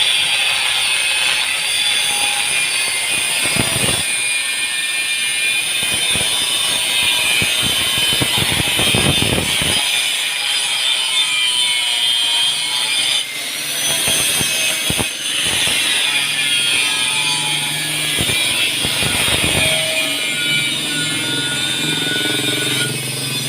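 A power tool running steadily with a dense high-pitched hiss and little low rumble. A whine rises and then holds about 13 seconds in.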